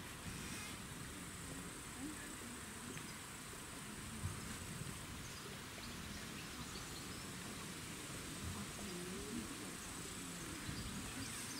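Outdoor ambience: a steady high insect drone with a few faint bird chirps over a low, even rumble.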